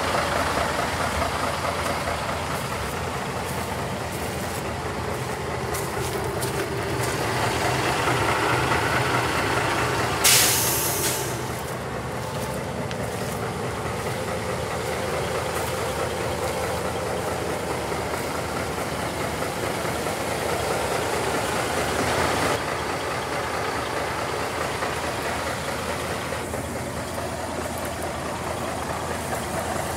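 Scania 470 truck's diesel engine idling steadily. About ten seconds in, a short, loud hiss of compressed air vents from the truck's air system.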